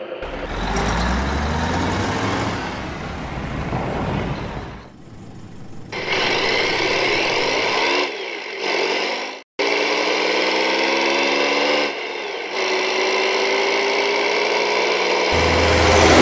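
Dubbed vehicle engine sound effects: engines running and accelerating, the pitch rising steadily in several long runs, with a brief cut to silence about nine and a half seconds in and a deep rumble coming in near the end.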